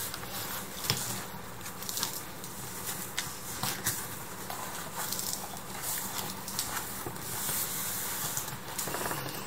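Cardboard TV carton and its foam and plastic packing being handled: steady rustling and scraping with many small clicks and crackles as the box is opened and the contents are moved.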